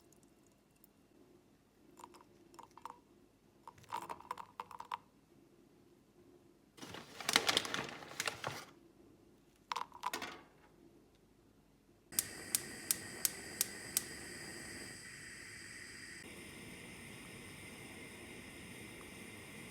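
Kitchen handling sounds: light clinks and rustles, with a louder stretch of rustling about seven seconds in. Then about five quick clicks of a gas stove's igniter and the steady hiss of the lit burner.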